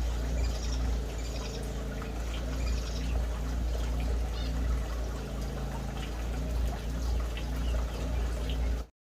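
Short, scattered chirps from canaries and zebra finches over a steady low rumble; the sound cuts off suddenly near the end.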